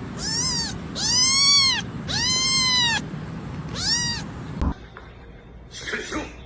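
A cat meowing four times, each meow rising and then falling in pitch, the middle two drawn out. A single sharp click follows.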